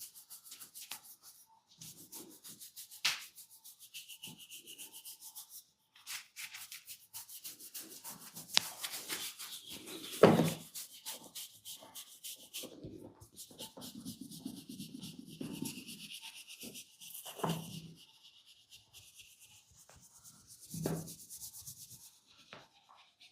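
Fingernails scratching vigorously through hair and scalp in quick runs of rapid strokes, with short pauses between runs. A few louder thumps break in, the loudest about ten seconds in.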